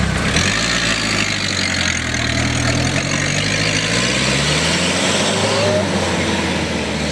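Off-road jeep engine revving hard under load, its pitch rising about a second in, climbing again around five seconds in and dropping near the end. A steady hiss of the wheels churning through wet mud runs underneath.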